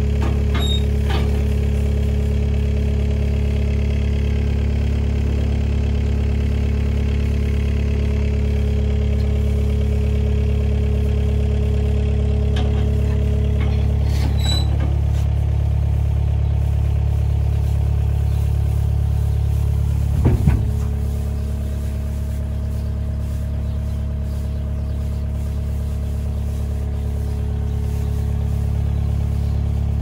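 Farm loader's engine idling steadily with a low hum. A few light clicks come around the middle and one short clatter about two-thirds of the way through.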